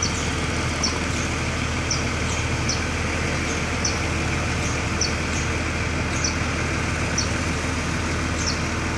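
Heavy diesel engine running steadily at a low, even speed during the unloading of an excavator from a truck, with short high chirps repeating about once a second.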